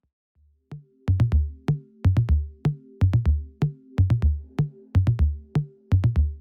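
Electronic background music with a drum-machine beat and held synth tones, starting after a short silence about a second in.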